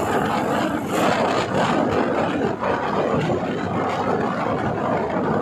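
Steady road and engine noise of a moving vehicle, heard from on board.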